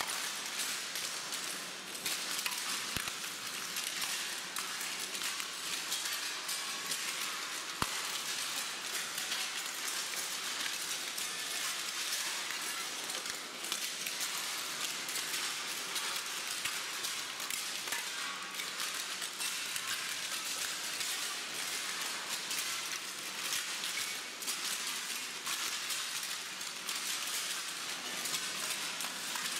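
Many footsteps crunching over a floor of thin, brittle white tiles, the pieces cracking and clinking underfoot in a dense, steady crackle.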